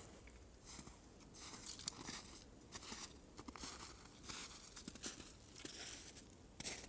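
Footsteps crunching in snow, a steady walking pace of about one and a half steps a second.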